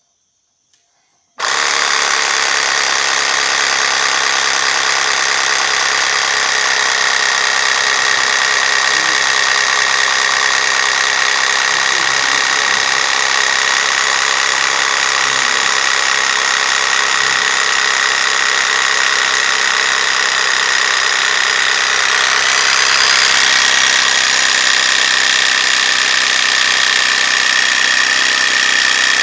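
A 12V portable mini air compressor switches on about a second in and runs steadily, pumping air into a car tyre through its hose on the valve: a loud, steady mechanical whine with a buzzing rattle. Near the end it gets a little louder and its whine drops slightly in pitch.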